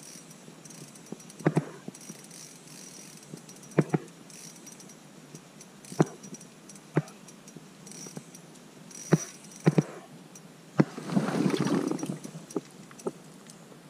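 Irregular sharp knocks and taps, about nine in all and some in quick pairs, followed near the end by about a second of heavy rustling of clothing and gear as the camera is jostled.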